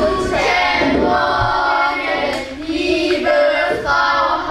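A group of children singing a song together in held, sung notes.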